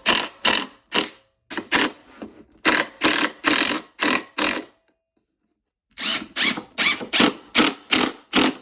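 Wood being worked by hand in rapid back-and-forth rasping strokes, about three a second, in three runs with short pauses between them.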